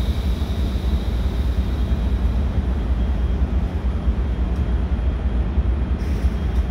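Steady low rumble of an Amtrak passenger train of double-deck Superliner cars at the platform, with a faint high whine that fades out about two seconds in.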